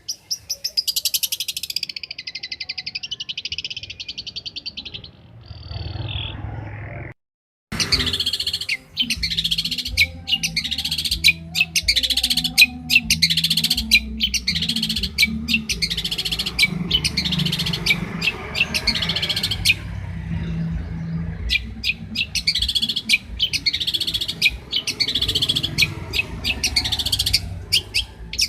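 Long-tailed shrike (cendet) singing a fast, chattering song of rapid, closely packed notes, with a brief break about seven seconds in.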